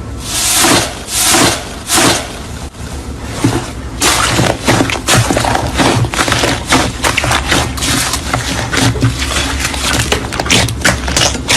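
Slime being squeezed and worked by hand: three broad squishing presses in the first couple of seconds, then, from about four seconds in, a dense run of small crackles and pops as it is pressed.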